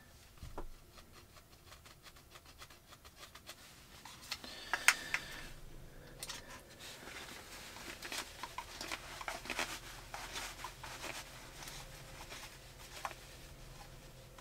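Faint scratching and small plastic clicks of a PEX deburring tool being turned on a cut PEX pipe end, with a sharper click about five seconds in.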